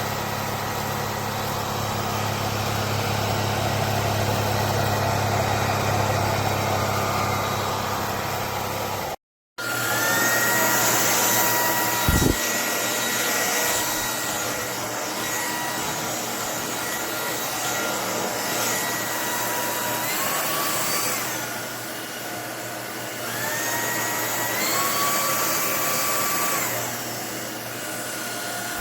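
Lubluelu cordless stick vacuum's 235 W brushless motor running with a steady rush of air. Its whine steps up in pitch and back down a few times in the second half, with a short knock partway through.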